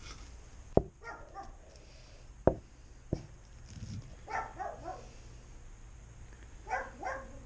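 A dog yipping three times, about one, four and a half and seven seconds in, with three sharp knocks in the first few seconds.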